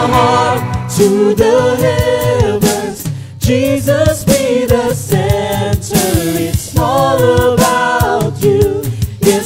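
Live worship music: a group of voices singing a praise song together over band accompaniment with regular drum hits.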